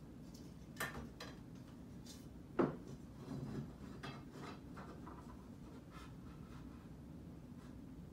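Scattered knocks, clicks and rubbing from wooden parts being handled and fitted together during assembly, with one sharper knock about two and a half seconds in.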